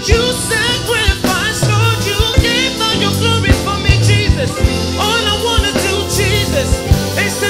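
Live gospel song: a male lead singer's voice winds through ad-lib runs over a band with steady drum hits and bass.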